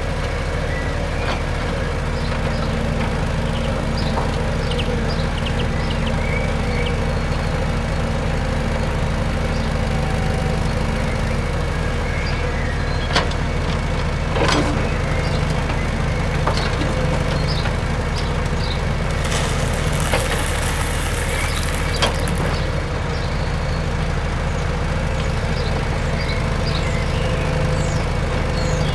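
Radio-controlled toy excavator running with a steady low motor hum while its bucket digs and dumps gravel, the stones clicking and clattering now and then. About twenty seconds in comes a longer rattle of gravel pouring.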